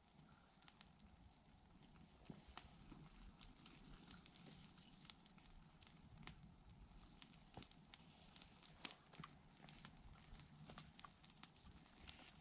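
Near silence, with faint, irregular crackles and clicks scattered through it over a low outdoor rumble.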